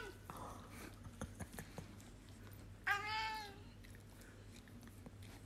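A cat meows once, about three seconds in: a short call that rises then falls in pitch. A few faint clicks come before it.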